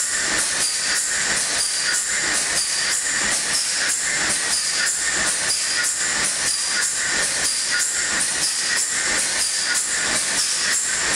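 TDA gas engine running steadily: a loud, even mechanical clatter with a hiss, repeating in a quick regular rhythm.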